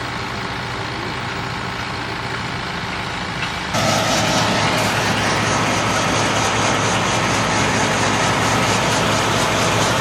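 Tractor engine running steadily. About four seconds in, the sound abruptly gets louder and fuller and then holds steady.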